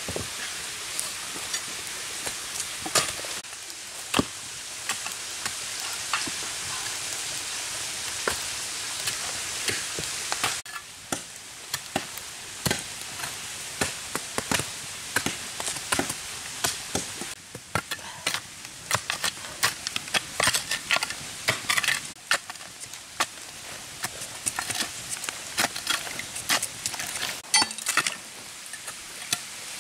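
Wood fire crackling with irregular sharp pops over a steady hiss that cuts off about ten seconds in. Near the end come knife or machete strokes on bamboo.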